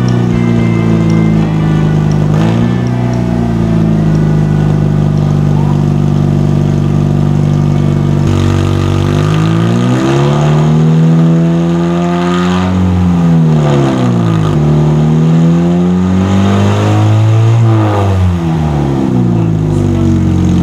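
Vintage Toyota's engine running through a homemade straight-through exhaust, steady for about eight seconds and then revved up and down several times.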